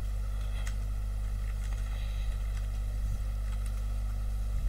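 Steady low background hum, with faint scattered ticks and scratches of colouring on paper.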